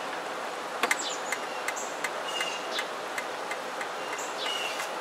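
Steady outdoor hiss with birds chirping now and then, light irregular ticks, and a sharp double click about a second in.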